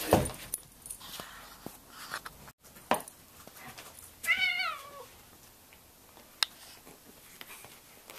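Orange tabby cat giving one wavering meow about halfway through, dropping in pitch at the end, while it wrestles with a Bouvier des Flandres dog. Around it, a few sharp knocks and bumps from the scuffle, the loudest right at the start.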